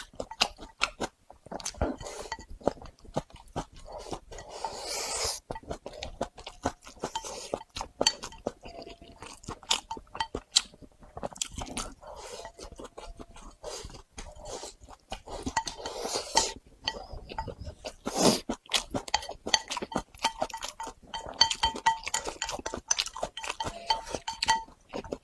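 A person chewing food close to the microphone, with many irregular crunches and wet mouth clicks, over faint background music.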